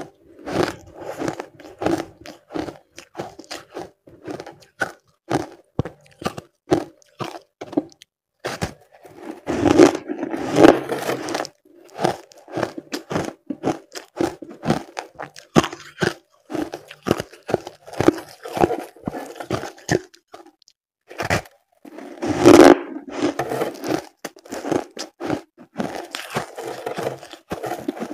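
Close-up crunching and chewing of reshaped, compacted shaved ice: a steady run of short crisp crunches, with loud bites into the slab about ten seconds in and again about twenty-two seconds in.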